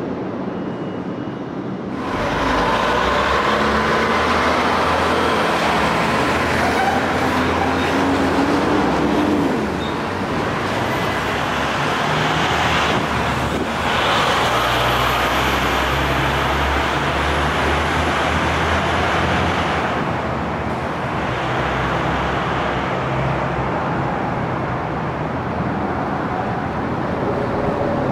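Road traffic with a heavy vehicle's engine running, its engine note rising for a few seconds partway through.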